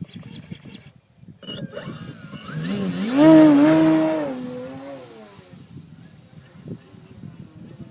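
Electric 58-inch Edge 540 RC aerobatic plane, driven by a Motrofly 4315 brushless motor and a 15x7 propeller, whining as it flies past. The whine rises in pitch and grows loud about three seconds in, then drops in pitch and fades away.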